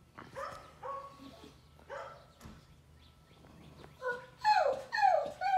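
German shepherd–boxer mix dog whining: a few short whines, then louder, longer whines that fall in pitch from about four seconds in. It is whining to be let out for a walk.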